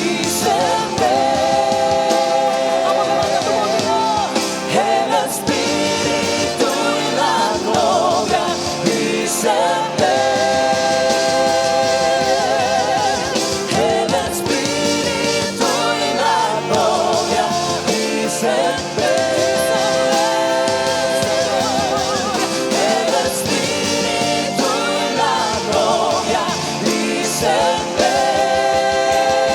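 Worship band playing a Christian worship song, with sung notes held for a couple of seconds each, wavering with vibrato, in phrases that repeat over the band.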